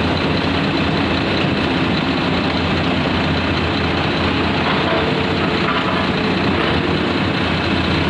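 Heavy diesel engines of a Komatsu 210 hydraulic excavator and an Eicher tipper truck running together at a steady level, the excavator working its boom to help free the tipper stuck in soft earth.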